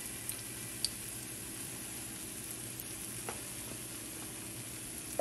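Battered plantain slices frying in hot oil in a skillet: a steady sizzle with a few small pops.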